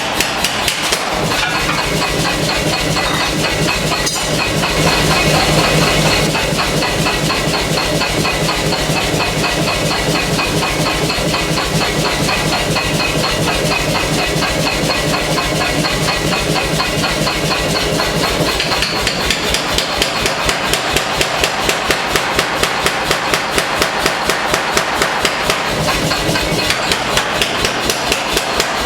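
Pneumatic air hammer (power hammer) pounding hot knife steel in a fast, steady rhythm of about four blows a second, over the continuous running of the machine.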